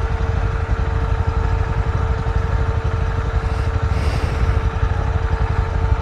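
Motorcycle engine idling steadily, with a low rumble and a constant hum.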